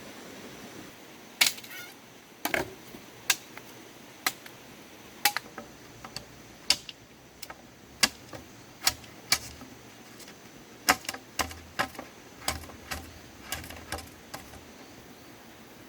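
Rice stalks being cut by hand with a sickle: about twenty sharp, crisp snaps at uneven intervals, one or two a second, starting about a second and a half in and stopping shortly before the end.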